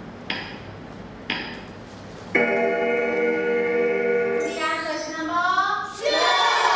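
Quiz slideshow timer ticking about once a second, then a sustained electronic chime tone held for about two seconds, followed by children's voices calling out.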